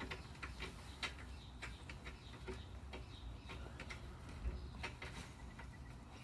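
Irregular light clicks and taps of small metal hardware being handled while a cabinet door is fitted to its concealed hinges, a few every second over a low hum.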